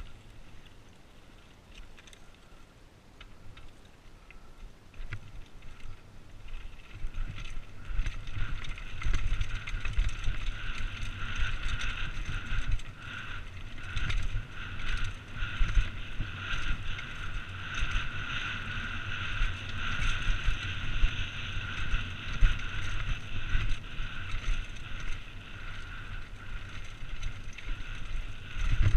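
Mountain bike rattling and bumping down a rocky gravel trail, with wind rumble on the helmet-camera microphone. It grows louder about a quarter of the way in, and from then a steady high buzz runs under the rattling.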